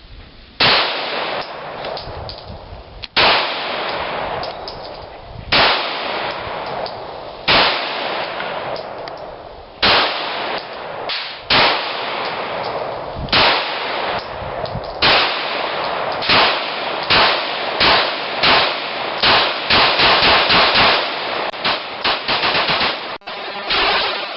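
Glock 17 Gen 4 9mm pistol firing a long string of shots, each followed by a long echoing tail: about two seconds apart at first, then quickening to several shots a second in the last eight seconds or so.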